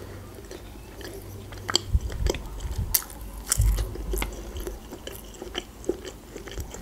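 Close-miked chewing of a bite of bread sandwich spread with zucchini caviar, with scattered wet mouth clicks. A couple of dull low thumps come about two and three and a half seconds in.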